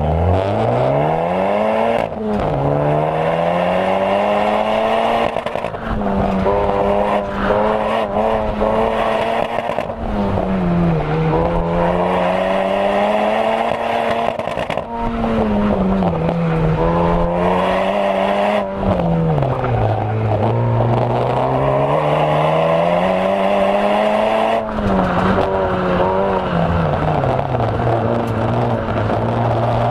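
A car's engine at full effort on an autocross run. It rises sharply in pitch off the launch, then climbs and drops again and again as the car accelerates and lifts through the course.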